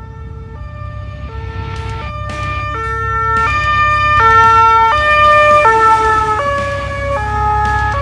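Fire engine's two-tone siren alternating between a low and a high note about every 0.7 seconds, over the truck's engine. It grows louder as the truck approaches, then the notes drop slightly in pitch as it passes and draws away.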